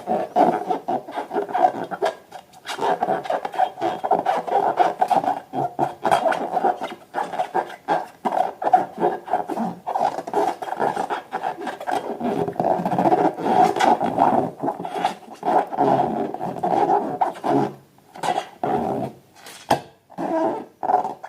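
Rubber balloons being rubbed and squeezed, squeaking almost continuously, with many small clicks.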